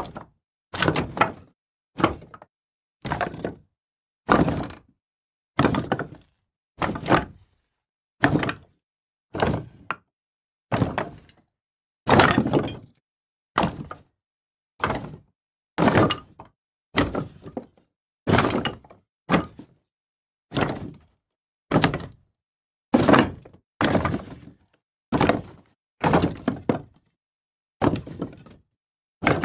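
Pieces of wood tossed down one at a time, each landing as a separate sharp impact with a short decay, about one every second or so.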